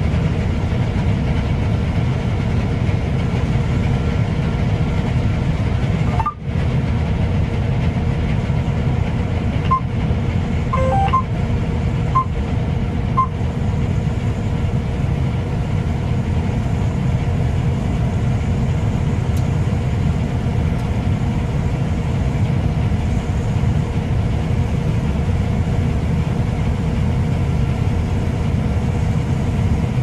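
John Deere T560i combine harvester running steadily as it cuts and threshes wheat, heard from inside the cab as a low drone. A few short electronic beeps at different pitches sound between about ten and thirteen seconds in.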